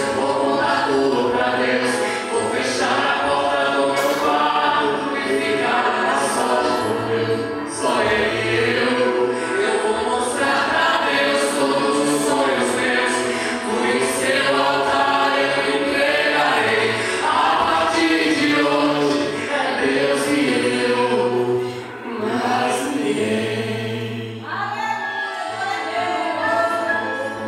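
Male voice singing a Portuguese gospel song into a handheld microphone over a PA, with musical accompaniment beneath, in long held and gliding notes.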